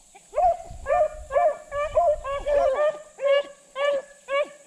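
Hunting dogs baying on a rabbit's trail: a run of short, pitched bawls, each rising and falling, about two a second, with some calls overlapping in the middle.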